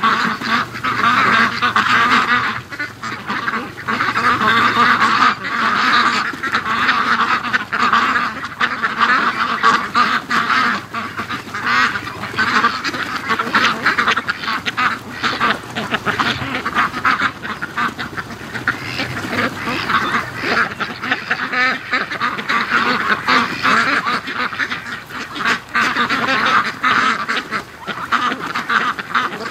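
A flock of white Pekin ducks quacking as they walk, with many overlapping quacks that never let up.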